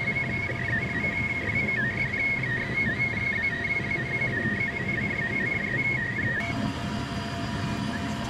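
A machine running steadily, with a wavering high whine over a low rumbling noise; about six seconds in the whine stops and a steady lower hum takes over.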